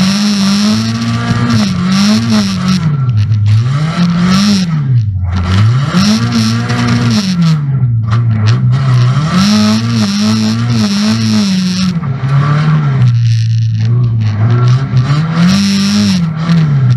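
Banger racing car's engine heard from inside the stripped cabin, revving up and falling back again and again, every second or two, as the driver works the throttle.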